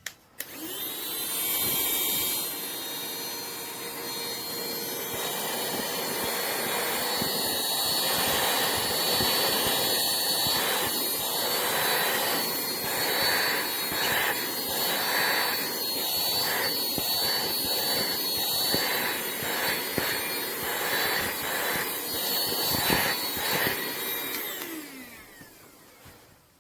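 Cordless handheld vacuum cleaner (CODN LT117) running: its small motor spins up with a rising whine, runs steadily with a high whine and a rush of suction air that swells and dips, then winds down with a falling whine near the end.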